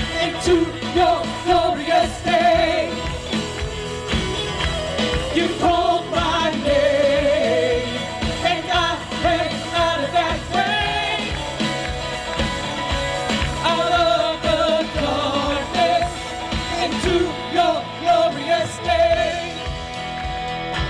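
Church worship band playing a contemporary worship song, with voices singing over a steady drum beat.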